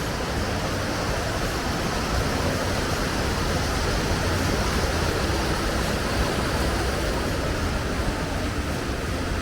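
Steady rushing of a mountain stream, an even unbroken noise.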